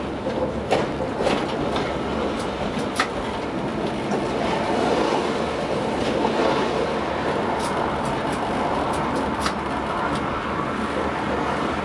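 Tatra T6A5 tram running along the track, heard from the driver's cab: a steady rolling rumble of steel wheels on rails, with scattered sharp clicks and knocks, most of them in the first three seconds and again near the end.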